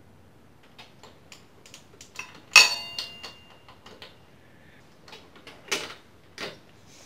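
Small metallic clicks and clinks of a hand ratchet and socket snugging the axle pinch bolts on a Kawasaki KLR650's front fork leg, with one sharp metal clank about two and a half seconds in that rings briefly, and two more knocks near the end.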